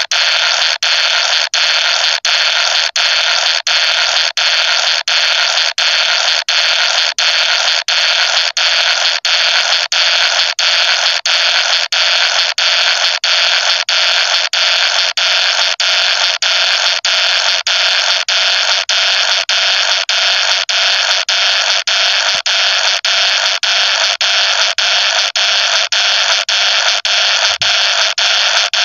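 Loud, steady static hiss, cut by brief dropouts about twice a second.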